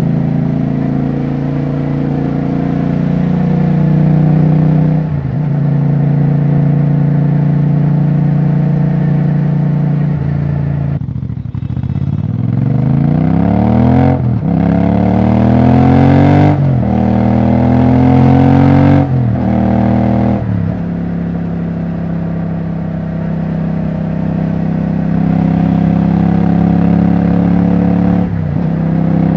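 Royal Enfield Bear 650's 648 cc parallel-twin engine running with no exhaust silencer fitted. About ten seconds in the revs drop, then it accelerates with a rising pitch in several steps, breaking off at each gear change. It then settles back to steady running, with one more brief dip near the end.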